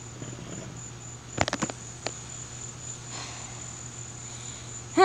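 Insects trilling steadily outdoors, a continuous high-pitched tone, over a low steady hum. A quick cluster of clicks comes about a second and a half in, with one more click shortly after.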